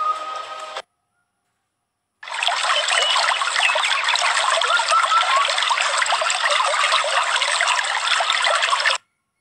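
Rushing water of a whitewater stream pouring down over rocks: a steady splashing hiss that starts about two seconds in and cuts off abruptly near the end. Before it, a held whistle-like musical note stops less than a second in, followed by a short silence.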